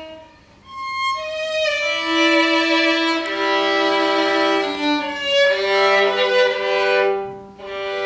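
Solo violin played with the bow: after a short pause about half a second in, a phrase of held notes climbs upward, breaks off briefly near the end, and resumes on a new sustained note.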